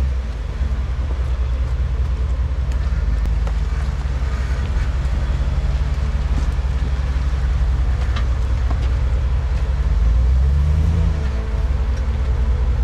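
Ford Raptor pickup's engine running under load on a rough off-road track, its revs rising briefly about ten seconds in, with a few knocks and rattles from the rocky ground and the truck's body.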